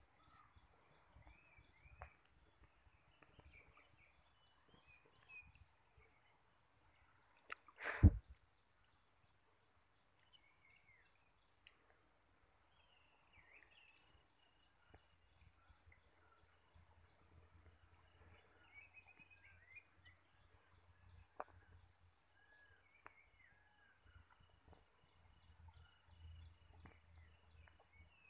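Birds chirping faintly, with repeated bursts of rapid high ticking. One loud, short thump about eight seconds in.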